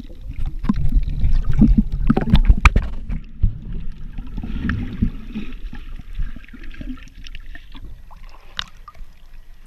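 Muffled underwater sound heard through an action camera's waterproof housing: a low rumble of moving water with sharp clicks and knocks in the first three seconds, then a quieter wash of water.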